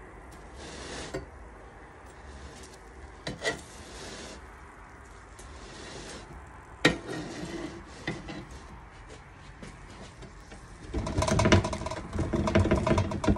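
A knife cutting through a baked pizza, its blade knocking and scraping against the pan beneath: a few sharp taps, then a louder stretch of scraping and crunching near the end.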